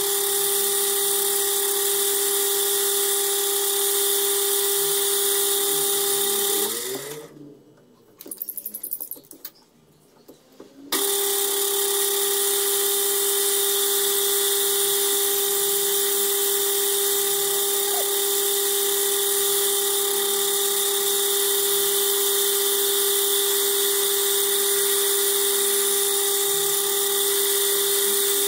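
Metal lathe running with a steady whine. About seven seconds in the sound winds down and goes quiet for a few seconds, then the lathe is running again, cutting in suddenly about eleven seconds in.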